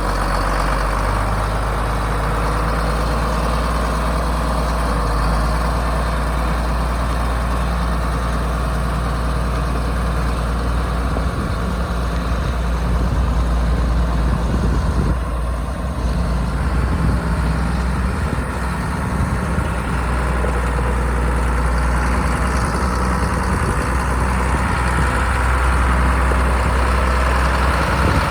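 1979 John Deere 4640 tractor's six-cylinder diesel engine idling steadily.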